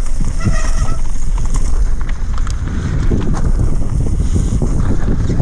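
Mountain bike running fast down a dirt trail: wind buffets the onboard camera's microphone, and the tyres rumble over dirt and stones while the bike rattles with each bump. A brief squeak comes about half a second in.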